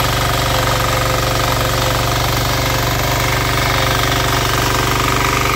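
Power weeder's engine running steadily with a rapid, even firing beat while its rotary tines churn through soil.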